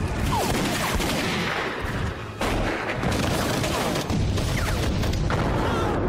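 Heavy gunfire from a war-film battle scene: a dense, continuous fusillade of shots with a short dip about two seconds in.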